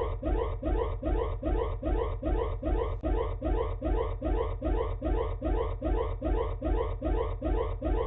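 Electronic alarm tone of a mock Emergency Alert System alert: a rising sweep repeated about two and a half times a second, with a low buzz pulsing along with it.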